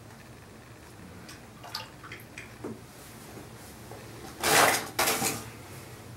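Objects handled on a desk: a few light clicks, then two short, loud clattering noises about four and a half and five seconds in.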